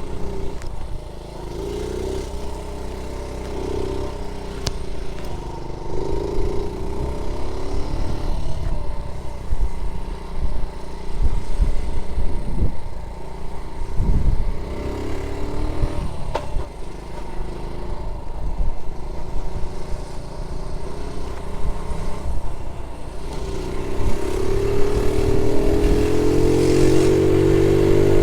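Honda Z50J1 Monkey's small four-stroke single-cylinder engine running under way, its pitch rising and falling as it revs up and eases off. From about 24 seconds in it climbs steadily as the bike accelerates.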